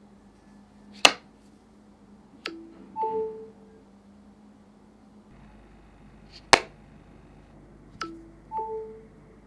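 Sharp click followed by a short electronic chime of a few clear notes, the whole pattern happening twice.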